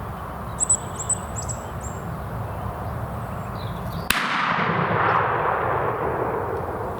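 A roding woodcock gives a few high, squeaky calls as it flies in. About four seconds in, a single shotgun shot cracks out, its echo rolling away and fading over the next couple of seconds.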